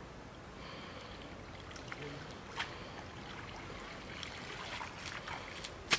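Pond water splashing and trickling as a wet cast net is gathered up and a man wades through shallow water, with a few short sharp splashes, the loudest near the end.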